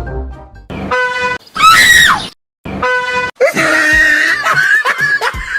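A loud train horn blast, followed at once by a person's frightened scream, the loudest sound. After a brief break the horn blasts again, and a second long, wavering scream follows.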